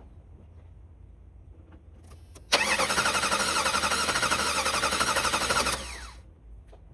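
The starter cranks a 1991 Jeep Wrangler's 4.0 L straight-six for about three seconds, in an even rapid pulse, without the engine catching, then spins down with a falling whine: a crank-but-no-start.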